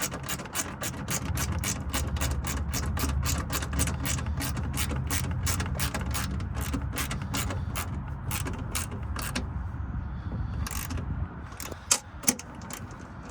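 Hand ratchet with a 13 mm socket clicking steadily as it tightens the nerf bar mounting bolts, about five clicks a second, stopping about three-quarters of the way through and followed by a few single clicks. A low steady rumble runs underneath.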